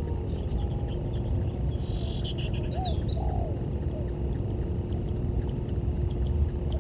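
Spotted dove (tekukur) cooing faintly, with a few short high bird chirps about two to three seconds in, over a steady low rumble.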